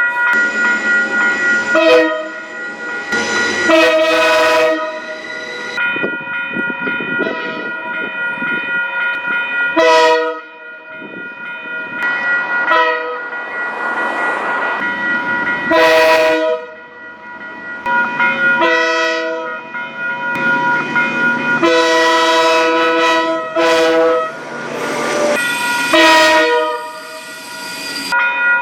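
Locomotive air horn sounding a chord in a series of blasts, some long and some short, over the running noise of a train. A steady high tone holds on underneath.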